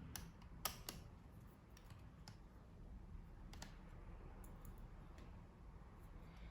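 Faint, scattered clicks and taps of small tools and plastic laptop parts being handled during disassembly, the sharpest three in the first second and another a few seconds in.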